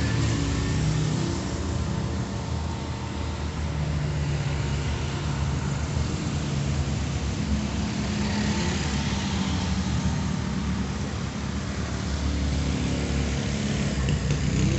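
Motor vehicle engines running, a steady low hum of road traffic, swelling briefly around the middle.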